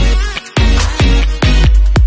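Electronic dance music with a steady kick-drum beat, a deep bass line and a synth melody.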